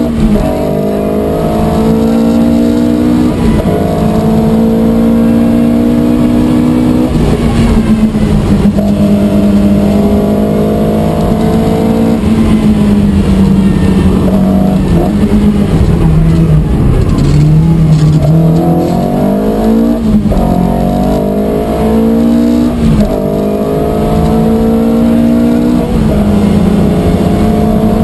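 Opel Manta rally car's engine heard from inside the cabin at full attack: revs climb hard in each gear and drop sharply at every upshift. About halfway through the revs fall away as the car slows for a corner, then it accelerates up through the gears again.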